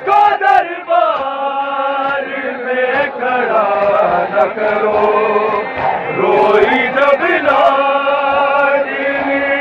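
Male voices chanting a noha, a Shia mourning lament, in long held notes that glide up and down. A few sharp slaps sound near the start.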